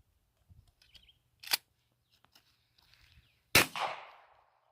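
Shotgun firing a homemade shell loaded with glitter: one sharp report about three and a half seconds in, trailing off in an echo. A shorter sharp snap comes about a second and a half in.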